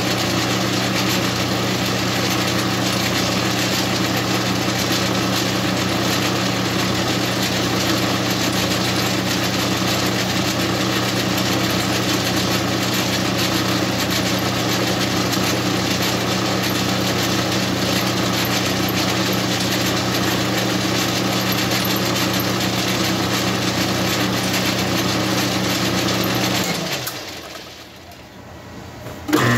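Metal lathe running steadily, its electric motor humming while it turns a threaded piece mounted on a spark plug in the chuck to true it up. About 27 seconds in it winds down and stops, then starts up again with a sudden loud jolt just at the end.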